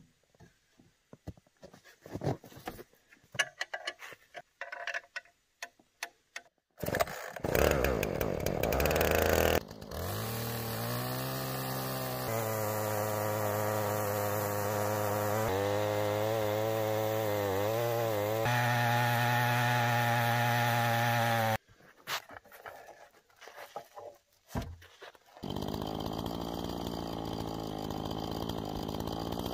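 Chainsaw mounted in a Granberg Alaskan mill makes a first lengthwise cut along a log, guided by a board nailed on top. It starts up about seven seconds in and revs, then runs steadily under load with its pitch wavering through the cut, and breaks off abruptly about twenty seconds in. Scattered knocks and clatter of handling come before it.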